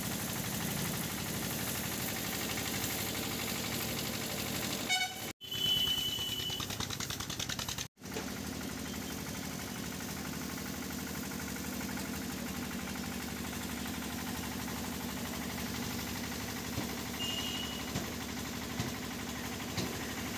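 Pressure washer spraying water onto the SUV's body and wheels, a steady hiss. About five seconds in a vehicle horn honks for about a second, and a second short honk comes near the end.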